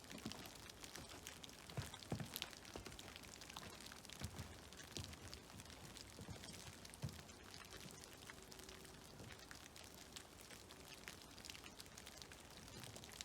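Meltwater and snow dripping from trees, a faint scatter of irregular drops and small plops, over the soft, steady trickle of a creek.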